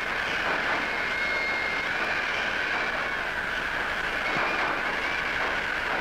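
A train running at speed: steady rattling wheel-and-carriage noise, with thin high squeals coming and going.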